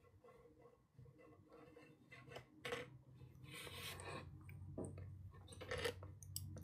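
Faint handling noises of a sheet of watercolour paper being tilted and shifted on a table: a few soft rustles and scrapes, then a sharp click at the very end.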